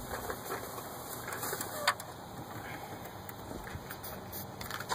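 Small handling noises from working on spark plugs and tools: one sharp click about two seconds in, and a few faint ticks near the end.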